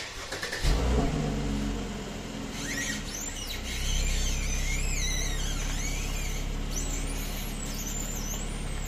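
Mercedes-Benz C-Class S205 front suspension squeaking while the steering is turned: high squeals that glide up and down, starting about two and a half seconds in, over the steady hum of the running engine. The squeak comes from the left side only, which the owner suspects is the lower control arm.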